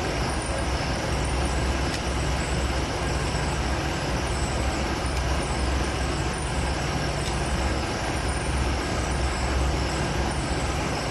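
Drain-cleaning or septic-pumping machinery running steadily: a broad rushing noise over a low, uneven throb.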